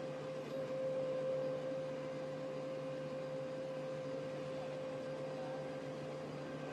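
Steady machine hum with a constant high whine over it, unchanging throughout, typical of machinery running while an excavator part is drilled.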